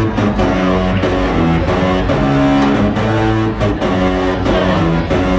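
Loud rock entrance music led by guitar, with a steady beat.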